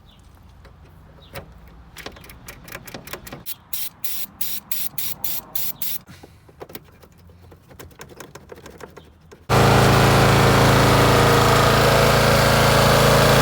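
Short repeated spurts of an aerosol contact-cleaner spray. About nine and a half seconds in, the mower's 13 hp Briggs & Stratton engine cuts in abruptly and runs steadily.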